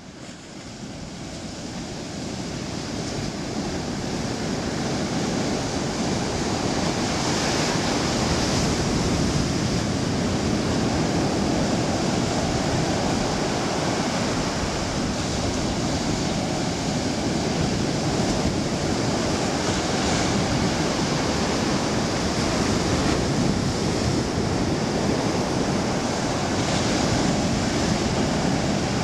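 Ocean surf breaking and washing up the beach, a steady rush of water that fades in over the first few seconds.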